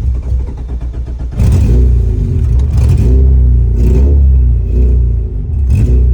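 Honda B20 non-VTEC four-cylinder engine running loud through an open header, revved up several times in quick surges.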